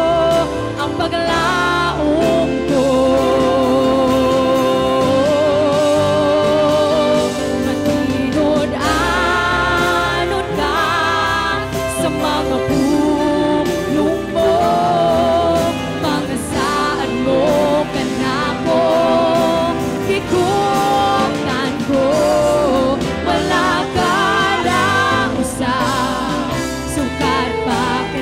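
Live worship band with a woman singing lead in Cebuano, joined by backing singers, over electric guitars and a full band accompaniment.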